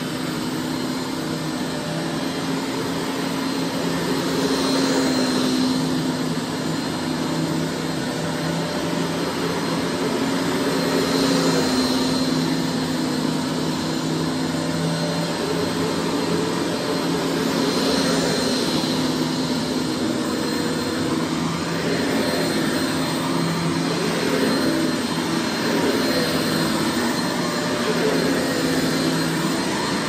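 Riccar dual-motor upright vacuum cleaner running on carpet: a steady motor hum and whine over an even rushing of air, the rush swelling about every six or seven seconds as it is pushed back and forth.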